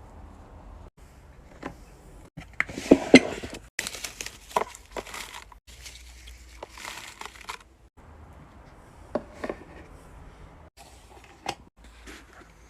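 Plastic crinkling and rustling with irregular clicks, as fidget toys and packaging are handled; the loudest burst of crinkling comes about three seconds in.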